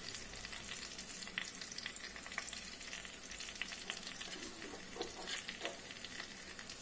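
Browned onion and spice masala frying in mustard oil in a steel kadhai, sizzling steadily with light crackles.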